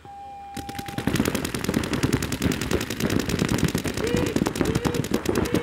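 A half-second electronic start tone, then rapid paintball marker fire breaks out about half a second in: a dense, continuous crackle of shots from several markers at once.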